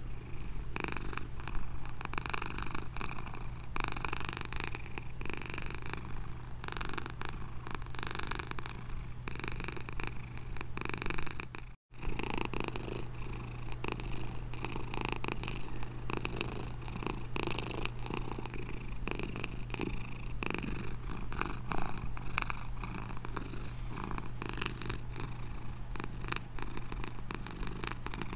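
Domestic cat purring steadily, a continuous run of rapid pulses, with a split-second break about twelve seconds in.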